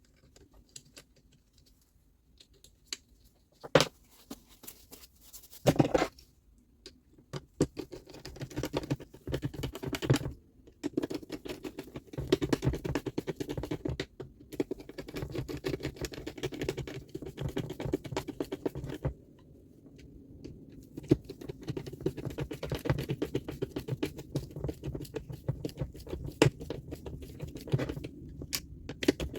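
Close-up hand work on the reciprocating saw's parts: fast, irregular scratching and clicking, with a couple of sharp knocks in the first few seconds.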